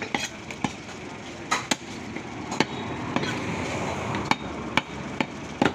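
A heavy butcher's cleaver chopping beef on a wooden log chopping block: about ten sharp, irregularly spaced chops, some in quick pairs, over a steady background din.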